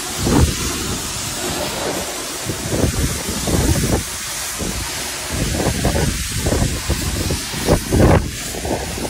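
High-pressure washer jet hissing steadily as the inside of a refrigerated semi-trailer is sprayed out, with water spattering and irregular low thuds, the strongest about half a second in and near the end.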